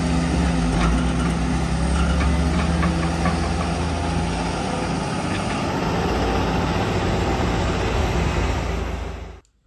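Heavy diesel construction machinery, a wheel loader and an excavator, running loudly while moving sand, with a few sharp metallic clicks and clanks. The steady engine note shifts about four seconds in, and the sound cuts off just before the end.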